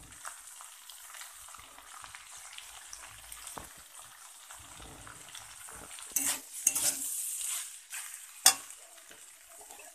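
Diced beetroot, carrot and capsicum sizzling in oil in a kadai. From about six seconds in, a metal spatula scrapes and stirs the vegetables against the pan, with one sharp clack of the spatula on the pan about eight and a half seconds in.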